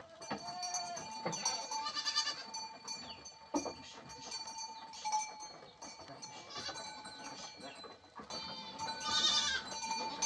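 Goats bleating in a wooden pen: a wavering bleat about two seconds in and another near the end, among light knocks and clinks from the animals moving about.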